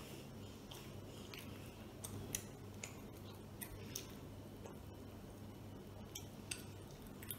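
A boy chewing mouthfuls of mutton biryani eaten by hand, faint, with scattered short soft clicks over a steady low hum.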